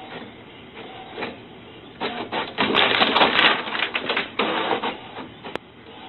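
Desktop printer running, its paper-feed mechanism whirring and clattering. The clattering gets much louder from about two seconds in, with sharp clicks, and eases off after about five seconds.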